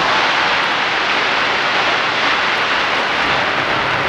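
Dense fireworks going off continuously along the sides of the Taipei 101 skyscraper, heard as a loud, steady crackling rush with no separate bangs.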